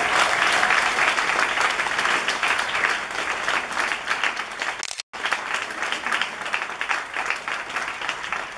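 Audience applauding, a dense patter of many hands clapping. It cuts out for a split second about five seconds in, then carries on and slowly grows quieter near the end.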